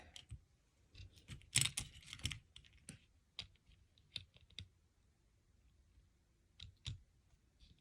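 Small plastic Lego pieces being handled: scattered light clicks and rattles, with a short run of clicks about two seconds in.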